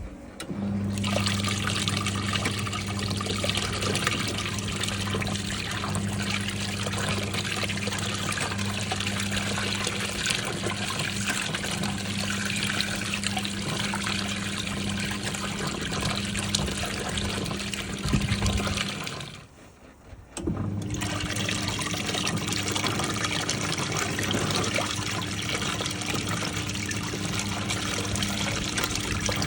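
National NA9450PN pulsator washing machine in its rinse cycle: water trickling and splashing in the tub over a steady motor hum. About two-thirds through, the sound drops out for about a second, then resumes with a slightly different hum.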